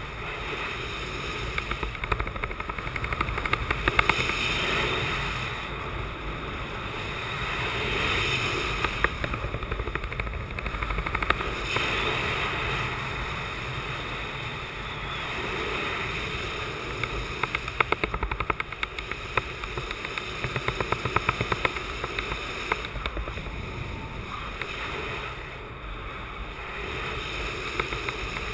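Wind buffeting the microphone of a pilot-mounted camera during a speed-wing glide. It makes a steady rushing noise with fast crackling flutter, swelling and easing every few seconds.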